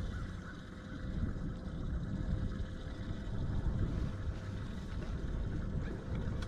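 Low rumbling wind-and-water noise on an open boat, with a faint steady hum throughout.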